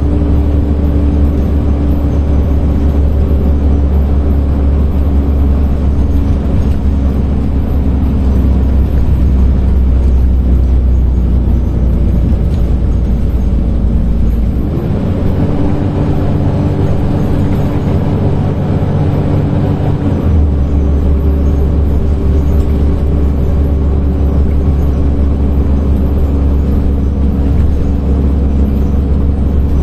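Volvo D10A-285 diesel engine of a Volvo Super Olympian double-decker bus pulling uphill, heard from inside the passenger cabin as a steady low drone. About halfway through the deep rumble eases for some six seconds, then comes back.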